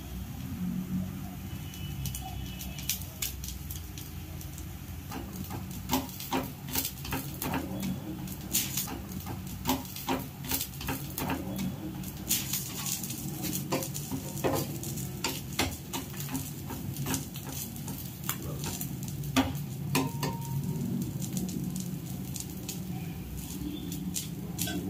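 A steel spatula tapping and scraping against a nonstick pan in a string of sharp clicks, with soft sizzling from a moong dal egg dosa cooking. A steady low hum runs underneath.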